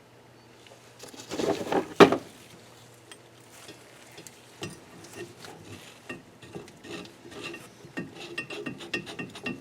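Valve spring compressor being worked on a cylinder head to compress a valve spring: scraping and handling with one sharp metal knock about two seconds in, then a long run of small, quick metallic clicks and scrapes as the tool is turned down.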